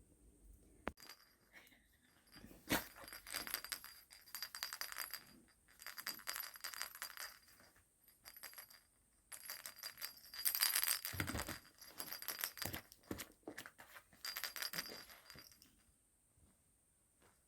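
Dog playing with a toy: several bursts of rapid rattling and jingling, each a few seconds long, with short pauses between them.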